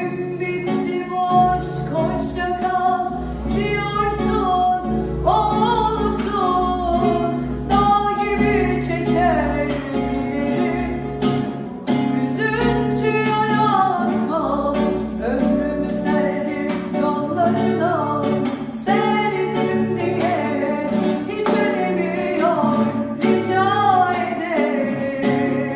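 Background music: a song with a singing voice over guitar and bass.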